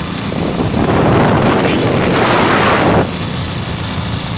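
Motorcycle engine running steadily while riding. From about half a second in, a loud rush of wind on the microphone covers it, then cuts off suddenly about three seconds in.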